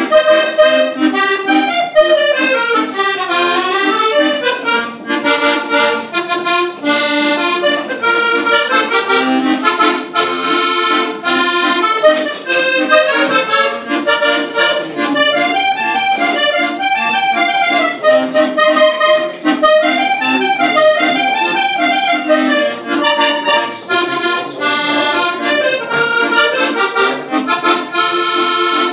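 Piano accordion playing a melody over chords, with running lines that climb and fall.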